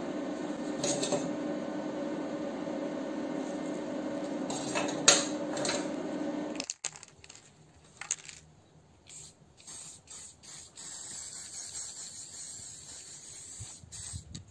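A MIG welding machine hums steadily with a few short crackles for about the first seven seconds, then cuts off abruptly. After that, an aerosol spray paint can hisses in a series of short bursts.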